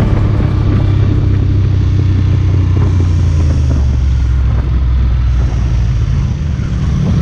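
Motorcycle engine running steadily at cruising speed, heard from the rider's seat with wind noise over the microphone. The engine's drone drops a little in pitch about halfway through.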